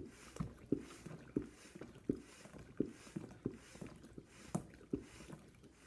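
Hot-water pot being pressed on its top to dispense hot water: a series of dull thumps and glugs, roughly one or two a second.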